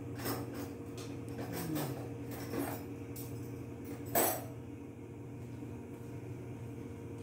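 A few light clicks and knocks, the loudest a single sharp knock about four seconds in, over a steady low hum.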